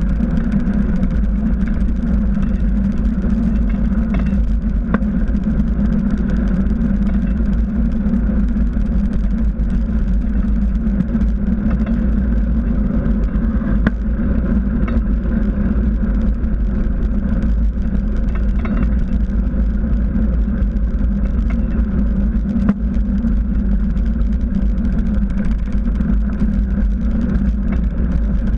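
Steady rush of wind on the microphone and the rumble of a knobby mountain-bike tyre rolling on asphalt as the bicycle rides along, with a few light clicks from bumps or rattles.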